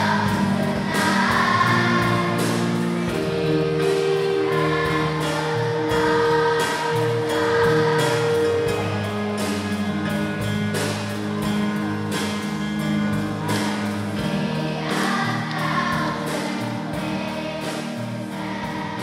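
Music with a choir singing over a steady beat, slowly fading toward the end.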